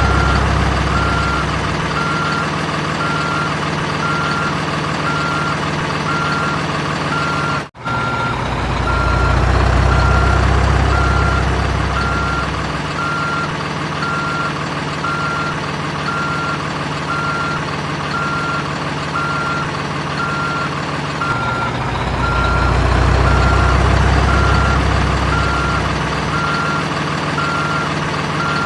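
Simulated heavy-vehicle sound effects from an RC construction toy: a steady beeping reversing alarm, about one beep a second, over a low diesel-like engine rumble that swells louder twice. The sound cuts out completely for a moment about a quarter of the way in.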